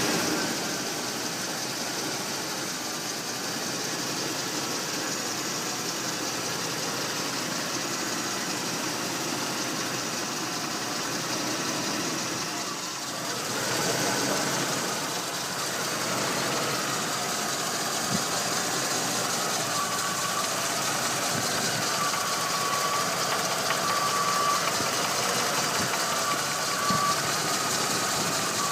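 Lincoln Town Car's Ford 5.0 Windsor V8 idling steadily, with a knock that the owner is asking about as possible engine knock. About halfway through, the sound dips and swells briefly. In the second half, a faint high tone comes and goes.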